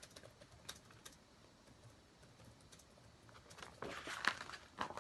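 Faint scattered ticks, then a picture-book page being turned: a paper rustle starting about three and a half seconds in and swelling again at the very end.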